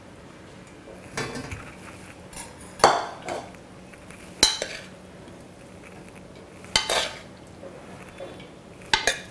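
Steel pressure-cooker pot knocking and scraping against a stainless steel mesh strainer as cooked chana dal is tipped out to drain, in about five separate metallic clatters a second or two apart.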